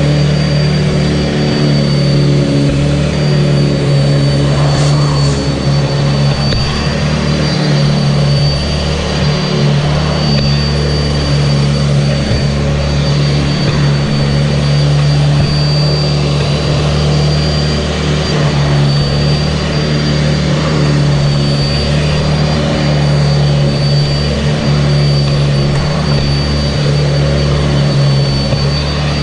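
Sanitaire SC679J upright vacuum cleaner running steadily, a loud motor hum with a thin high-pitched whine.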